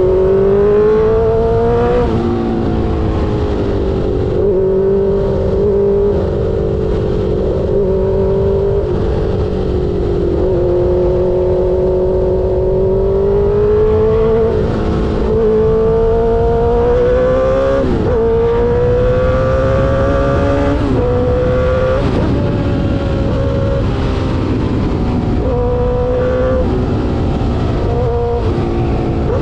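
Suzuki GSX-R 600 K5 inline-four with an SC Project exhaust under riding load: the engine note repeatedly climbs and then drops suddenly as gears are quickshifted, about ten shifts in all, over a steady low rumble.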